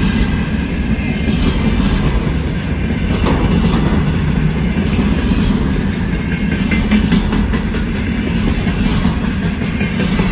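Freight train of container-laden flatcars rolling past close by: a steady, loud rumble of steel wheels on rail, with many quick clicks from the wheels passing over the track.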